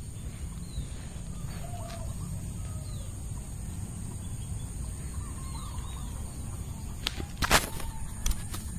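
Chickens clucking and small birds calling faintly over a steady low rumble, with one sharp knock about seven and a half seconds in.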